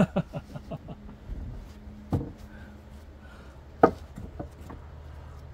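A few scattered knocks and taps, the sharpest about four seconds in, over a faint low steady hum.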